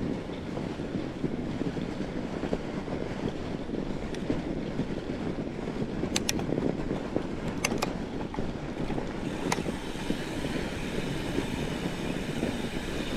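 Wind buffeting the microphone of a camera riding on a fat bike on a snowy trail, a steady fluttering rumble, with a few sharp clicks in the second half.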